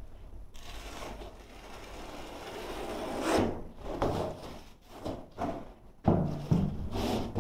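Sheet of foam carpet underlay being handled and slid over a concrete floor: rubbing and scraping that builds to a peak about halfway through, then several shorter scrapes and a louder bump about six seconds in.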